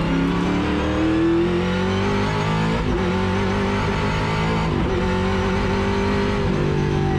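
Ford XE Falcon race car's engine heard from inside the stripped cabin, climbing in pitch under acceleration, with sharp breaks in pitch about three and five seconds in, as at gear changes.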